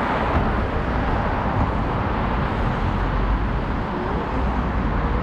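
Steady low rumble with a hiss above it: outdoor background noise with no single clear event.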